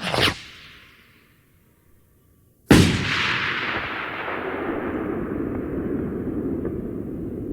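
Rocket sound effect: a short sharp blast with a hissing tail that fades over about a second, then, about two and a half seconds later, a louder bang followed by a steady rushing roar.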